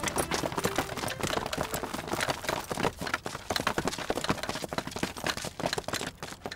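Several people running on hard ground, a quick, uneven patter of footsteps.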